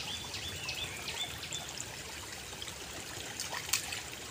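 Shallow rainwater stream trickling steadily over mud and stones. A bird chirps in a quick repeated series during the first second and a half.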